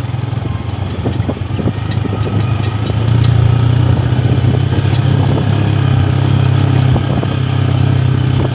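Motorcycle engine running steadily under way, growing louder about three seconds in, with scattered light clicks and rattles.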